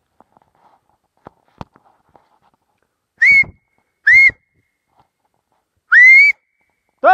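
A hunter whistling three times to call his hounds back: two short whistles a little under a second apart about three seconds in, then a longer one near the end, each sliding up at the start and then holding a high note. A few faint ticks come before them.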